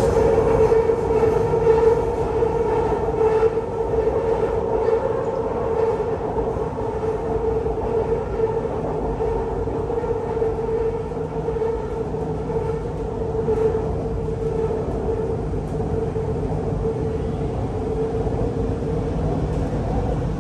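Bangkok BTS Skytrain metro train in motion: a steady whine over the even rumble of the wheels on the rails.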